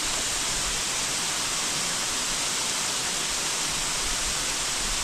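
River rapids rushing: a steady, even hiss of white water.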